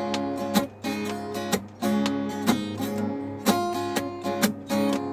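Acoustic guitar strumming chords in a steady rhythm, the chords ringing between strokes, in an instrumental gap between sung lines.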